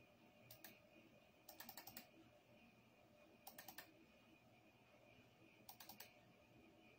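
Faint clicks of a computer mouse button, in four quick clusters of several clicks each, like double-clicks, over a faint steady electrical tone.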